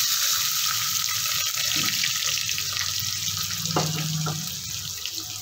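Chopped onions freshly added to hot sesame oil in a steel pot, frying with a loud, steady sizzle that slowly eases.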